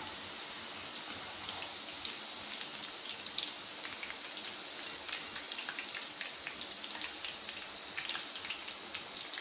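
Folded wheat-dough sweets deep-frying in hot oil over a low flame: a steady sizzle with many fine crackles.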